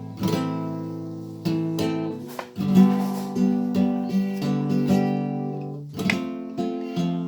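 Acoustic guitar strumming a run of flamenco-style chords, each strum struck sharply and left ringing.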